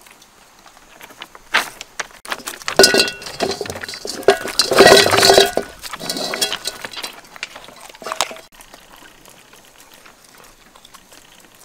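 A metal wok clanking and ringing on stones as a puppy pushes its head into it to eat, a run of knocks that is loudest and busiest about three to five seconds in and dies away after about eight seconds.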